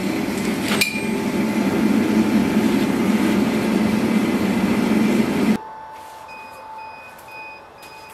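Propane gas forge burner running with a steady, loud rush while a blade heats in it, and a single metallic clink of the tongs about a second in. The rush cuts off suddenly a little past halfway, leaving a much quieter background with faint repeating tones.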